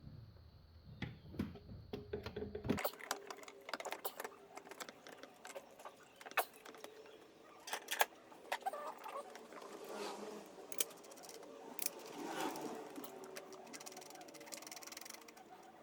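Scattered light clicks, knocks and rustling of parts being handled and fitted back into a car's engine bay.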